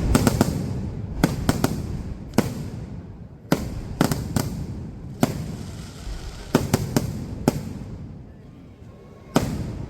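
Fireworks display: a string of about fifteen sharp bangs from bursting firework shells and crackers, irregularly spaced and often two or three in quick succession, each trailing off in a low rumbling echo. There is a longer gap near the end before one last bang.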